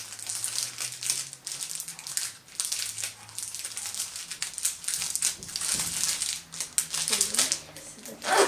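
Plastic packaging crinkling and rustling as it is handled, on and off, loudest near the end.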